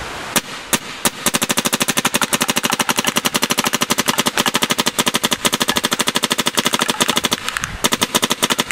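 Dangerous Power M3-A1 battery-powered electronic paintball marker firing: three single shots, then a long stream of rapid-fire shots, a short break about seven and a half seconds in, and rapid fire again.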